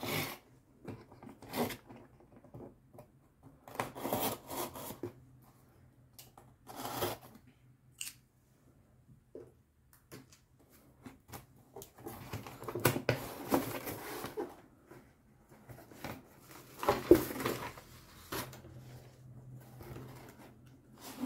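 Packing tape on a cardboard shipping box being cut and torn open, in scattered bursts of scratching and ripping, the longest a few seconds past the middle. The cardboard lid is then pulled open.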